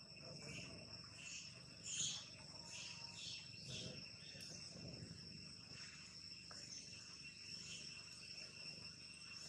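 Faint, steady high-pitched drone of insects, with a quick series of short high chirps over the first few seconds.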